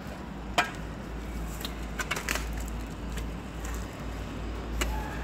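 A few sharp clicks and knocks over a steady low rumble on the microphone. The loudest click comes about half a second in, a quick cluster follows about two seconds in, and one more comes near the end.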